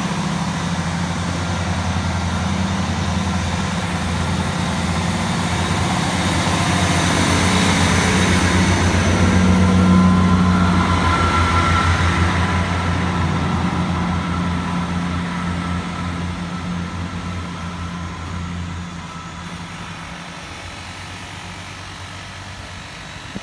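Class 158 diesel multiple unit's underfloor diesel engines running as the train moves past along the platform, a steady low hum that grows louder to a peak about ten seconds in and then fades away.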